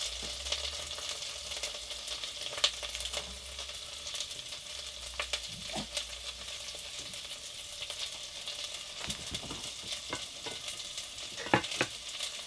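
Purple sprouting broccoli sizzling in butter and chili oil in a pan, with scattered clicks and scrapes of a utensil stirring it.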